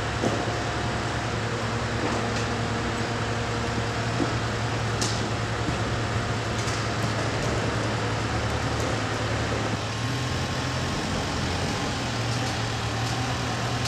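A large engine of heavy equipment running steadily at a constant low hum, with a few light metallic clicks.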